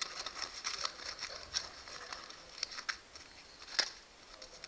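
Aluminum foil crinkling and crackling as it is folded and squeezed between the fingers into a thicker wad, with irregular small crackles and one sharper snap near the end.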